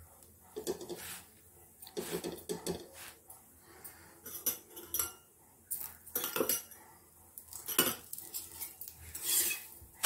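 Metal kitchen utensils clinking and scraping against a flat griddle (tawa) in irregular bursts, including a steel spatula scraping under a flatbread near the end.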